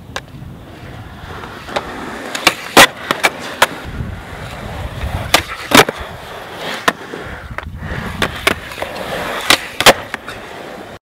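Skateboard wheels rolling on concrete, broken by many sharp clacks of the board hitting the ground as flatground tricks are popped and landed. The loudest clacks come about every three seconds, and the sound cuts off suddenly near the end.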